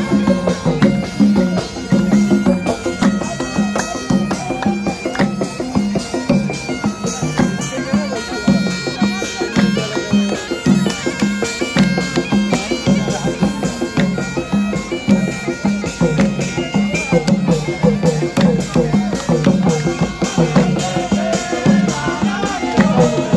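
Bagpipes playing a sustained, droning folk melody over drums beating a steady rhythm of about two strokes a second, from a traditional band of pipes and drums.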